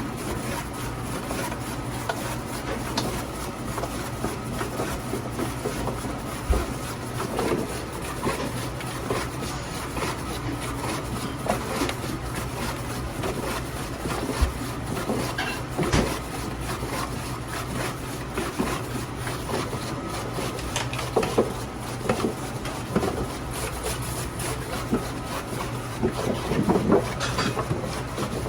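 Radish-slicing food machine running: a steady low motor hum under continuous cutting noise as radish is sliced thin, with scattered short knocks, a cluster of the louder ones near the end.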